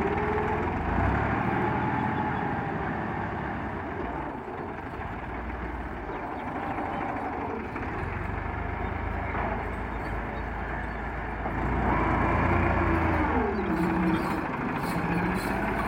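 Massey Ferguson 260 tractor's diesel engine working under load as its rear blade drags soil. The engine note sinks and then climbs again about two-thirds of the way through.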